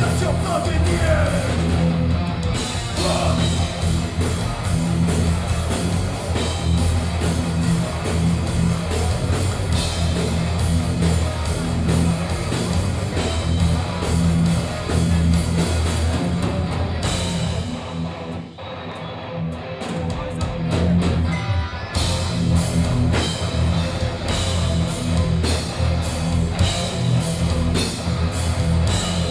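A heavy metal band playing live: distorted electric guitars, bass and a drum kit with cymbals. A little past halfway the cymbals drop out and the band plays a short stop-start break of clipped hits, then the full band comes back in.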